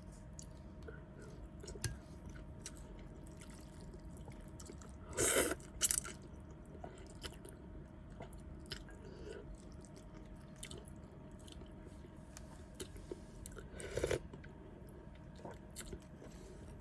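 Close-miked chewing of noodle soup, with many small wet mouth clicks. A few louder eating noises come about five, six and fourteen seconds in.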